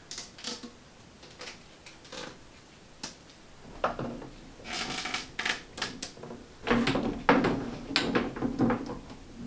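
Half-inch PVC pipes being pushed into plastic corner and T connectors and handled on a wooden tabletop while a frame is assembled: a scatter of sharp plastic clicks and hollow knocks. They are sparse at first and come thicker from about halfway, with heavier knocks near the end.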